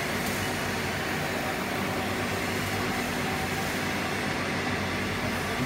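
Electric drum roaster running while a batch of roasted wheat bran is unloaded, the bran pouring from its discharge chute into a steel basin. A steady, even rushing noise over a low machine hum.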